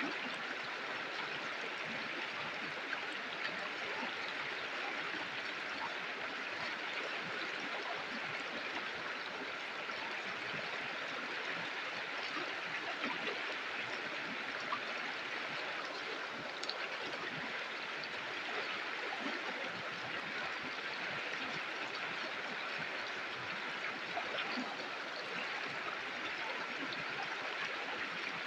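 River water flowing and gurgling steadily over stones, with small splashes.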